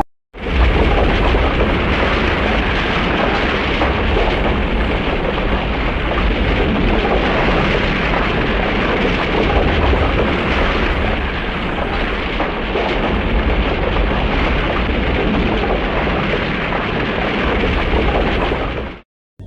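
Showa-era tokusatsu sound effect: a long, steady rumbling roar of noise, deep and dense like sustained explosions or thunder, that starts a moment in and cuts off suddenly near the end.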